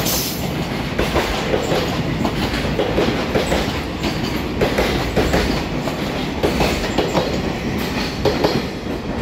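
Koki container flatcars of a freight train passing at speed, their wheels clacking over the rail joints in a repeating clickety-clack over a steady rolling rumble.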